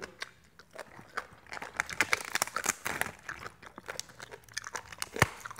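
Close crunching and crackling of crisp food being chewed and a raw cabbage leaf being torn by hand, a dense run of crisp crackles in the middle and one sharp click near the end.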